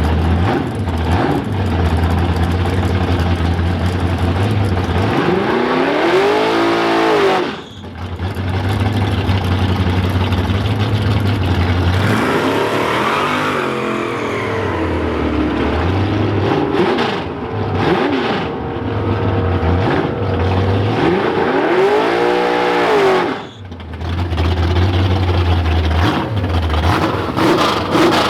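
Drag race car engines running loud, revved hard several times with the pitch sweeping up and back down, between stretches of a steady low rumble; the sound breaks off abruptly twice.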